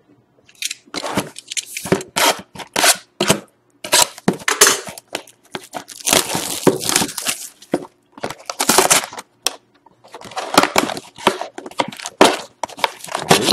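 Plastic wrapper being torn and crinkled off a sealed trading-card box in a string of irregular rips and crackles, then the cardboard box being pulled open near the end.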